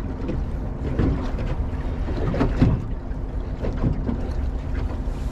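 Wind buffeting the microphone and river water slapping against the hull of a drifting fishing boat, with a steady low hum underneath.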